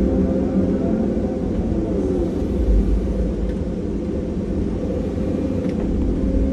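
Heavy diesel engines of a Caterpillar excavator and haul truck running steadily under load, a continuous low rumble with a steady hum.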